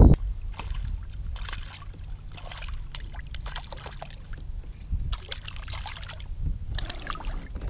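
Water splashing in several short bursts as a hooked fish, likely a crappie, thrashes at the surface on the line, over a low steady rumble.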